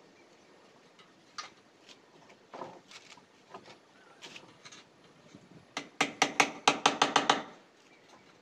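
Hammer blows in a quick run of about nine, roughly six a second, near the end, each with a short ring, after a few scattered light knocks and taps.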